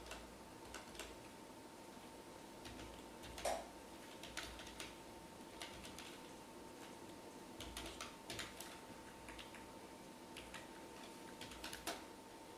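Computer keyboard typing: faint, irregular keystrokes spaced out as a line of code is typed slowly. One click about three and a half seconds in is louder than the rest.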